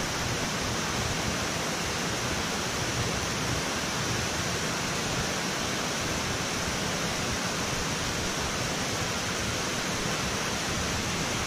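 Steady rush of water pouring through a dam's spillway gates into the river below.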